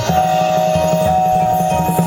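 High school marching band playing, with held notes over a pulsing low part.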